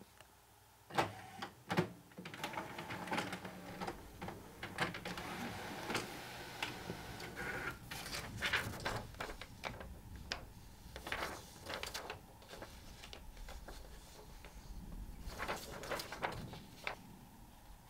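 Inkjet printer printing a page: a couple of sharp clicks about a second in, then steady mechanical running with repeated clicks for most of the stretch, settling near the end.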